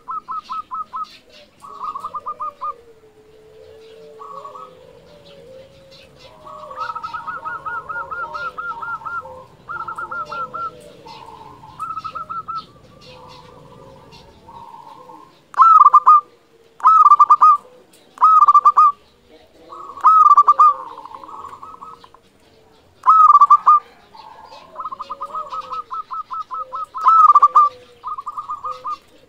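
Zebra dove (local perkutut) cooing in repeated phrases of quick stuttering notes. From about halfway through, louder phrases come in with sharper downward-sliding notes, roughly one to two seconds apart. Faint high chirps of small birds are in the background.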